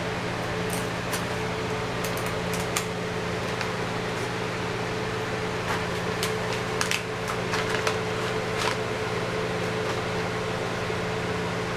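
Steady mechanical hum, with scattered light clicks and paper rustles in the middle from a kitten pawing a sheet of paper and a pen on a plastic clipboard.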